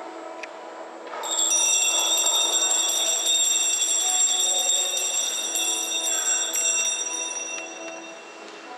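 A shimmer of high, bright bell chimes rings out about a second in and slowly dies away over several seconds, over soft sustained background music.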